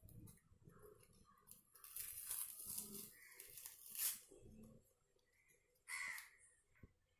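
Faint rustling and tearing of a small cardboard jelly-powder box being opened by hand, the flap pulled up and the inner packet drawn out, in short irregular crackles.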